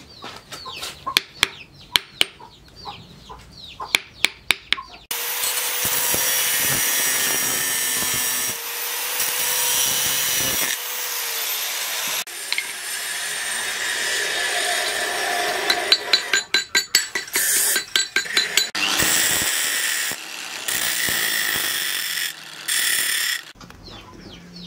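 Repeated hammer taps driving a wooden handle onto a blade on a steel stake anvil. About five seconds in, an angle grinder starts and runs loud and steady for most of the rest, broken partway through by a quick run of knocks. Light tapping returns near the end.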